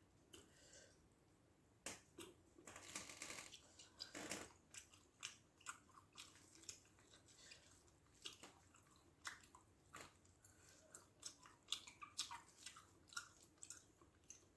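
Close-miked eating: wet chewing and lip-smacking on a mouthful of rice with fish gravy, in irregular short clicks and smacks, busiest in the first few seconds.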